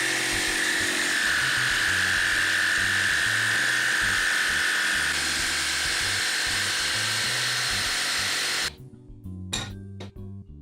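A small power tool's motor runs steadily with a high whine, apparently cutting into a wooden broom handle, and stops abruptly about nine seconds in. Background music with plucked guitar notes plays throughout and is left alone at the end.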